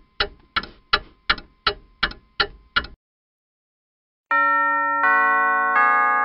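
Clock ticking fast, about three ticks a second, stopping about three seconds in. After a short pause, clock chimes sound three bell notes about a second apart, each ringing on under the next.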